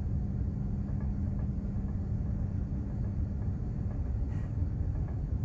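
Container ship under way: a steady low rumble from its engine and hull vibration, with a constant hum running through it.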